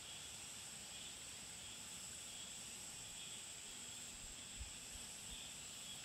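Faint, steady high-pitched insect chorus, several even bands of shrill buzzing with no break. There is a soft low thump about three-quarters of the way in.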